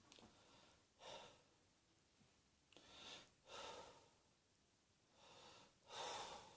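A person's faint breathing: about five short, noisy breaths in and out, with the loudest near the end.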